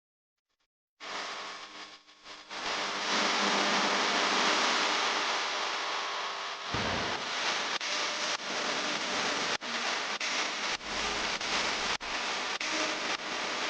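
Maida flour frying in oil in a pan: a steady sizzling hiss that starts about a second in, broken by many brief dips in the second half.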